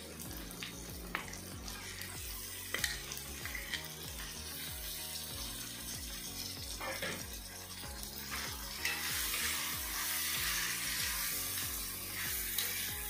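Raw chicken pieces sizzling in hot oil in a kadai, stirred with a perforated metal ladle that clicks and scrapes against the pan a few times. The sizzling grows louder about two-thirds of the way through as the chicken is worked down into the oil.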